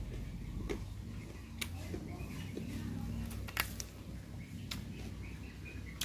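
A person chewing a mouthful of food close to the microphone, with a few short sharp mouth clicks and smacks over a low steady background rumble.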